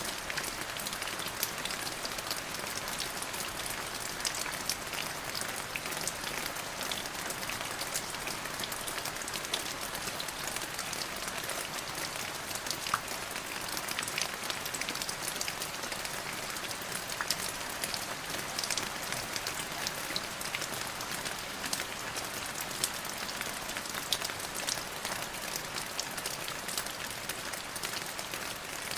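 Steady rain falling, with many individual drops ticking sharply on a hard surface over a constant hiss.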